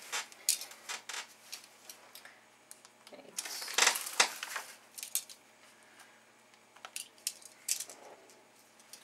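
A diamond painting canvas and its plastic cover sheet being handled: scattered light rustles and small clicks, loudest in a short cluster of rustling about four seconds in.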